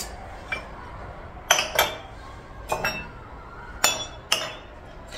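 Dishes and cutlery clinking and knocking in a kitchen: several separate sharp clinks at uneven intervals, some ringing briefly.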